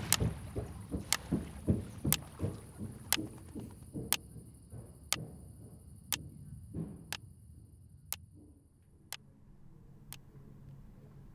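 A clock ticking once a second, with irregular soft knocks and thuds mixed in during the first seven seconds.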